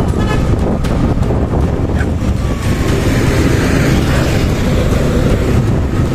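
Steady engine rumble of a moving motor vehicle, with wind buffeting the microphone.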